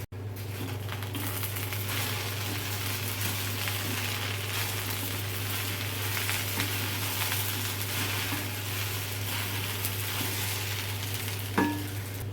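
Okra frying and sizzling steadily in a pan while it is stirred, with a single sharp metallic clink near the end.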